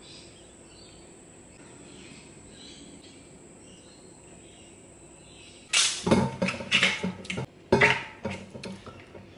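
Quiet room tone with a faint steady high whine for the first five seconds or so. Then, from about six seconds in, a sudden run of loud knocks, clunks and rustling from handling close to the microphone.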